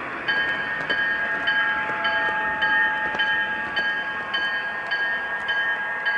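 A 3-rail O scale model locomotive's onboard sound system ringing its bell, starting about a third of a second in and striking a little under twice a second, over the running noise of the model train on its track.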